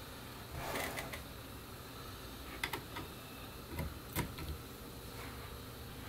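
A USB flash drive being pushed into a motherboard's rear USB port: a faint scrape in the first second, then several light, separate clicks.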